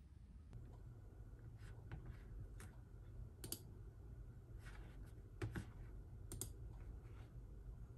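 A few quiet, irregularly spaced clicks from a MacBook Pro's trackpad and keys, over a low steady room hum.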